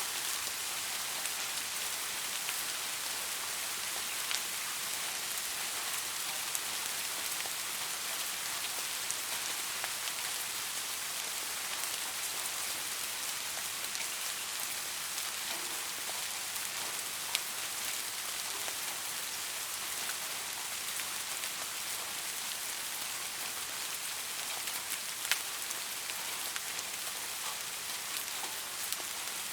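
Steady rain falling, a dense hiss with scattered individual drops ticking on a surface; a couple of drops land a little louder, about two-thirds of the way through and near the end.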